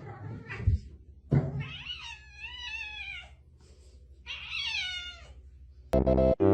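A cat meowing twice: one long meow that wavers up and down in pitch, then a shorter one. There is a low thump shortly before the first meow, and loud pulsing music begins near the end.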